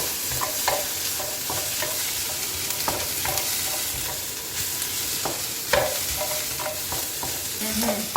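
Onion, carrots and green pepper sizzling in hot oil in a pan while being stirred, with a utensil knocking against the pan now and then, one knock louder about six seconds in.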